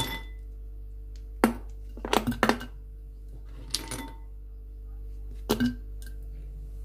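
Scattered light clinks and knocks of hard kitchen objects: a single one, a quick cluster of three, a softer one, then a pair, over a faint steady hum.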